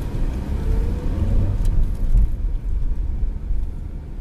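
A car driving, heard from inside the cabin: a steady low rumble of road and engine noise that swells and dips.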